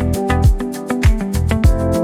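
Background music with a steady beat: plucked or strummed melody notes over a deep kick drum.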